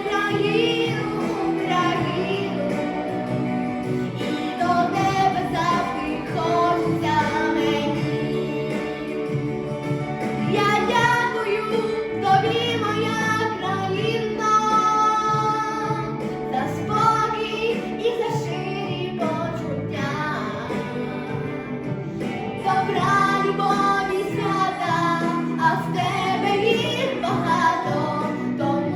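A solo female voice singing a song over an instrumental backing track.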